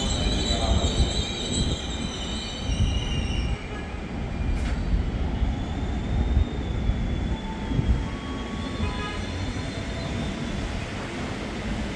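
KRL electric commuter train braking into the station: high-pitched wheel and brake squeal that fades over the first three seconds, then a steady low running noise as it slows to a stop, with a few faint tones later on.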